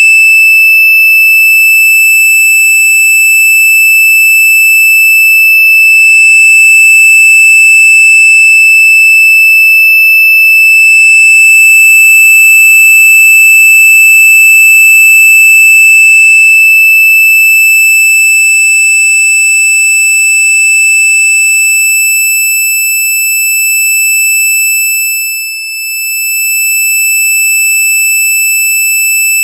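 A very loud, high-pitched electronic tone held at one steady pitch without a break: the 'most annoying sound' prank sound effect. It dips briefly in loudness about 25 seconds in.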